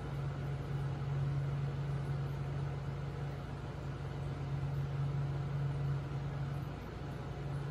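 Steady low hum of an aquarium pump running, over an even fainter hiss.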